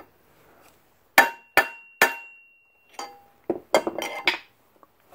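Three hard hammer blows on steel, one after another about a second in, with a high metallic ring hanging after them, then a quick run of lighter metal taps and clinks. The hammer is persuading a mounting bolt into line between an engine stand's plate and a Model T engine block.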